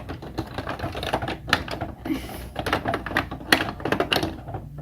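Rapid, irregular clicking and clattering of hard plastic parts as a Bruder toy tow truck is handled and played with.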